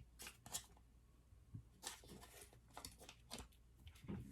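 Near silence with a few faint, light clicks and scrapes of kitchen handling, most likely butter being dropped into hollowed-out baked potato skins.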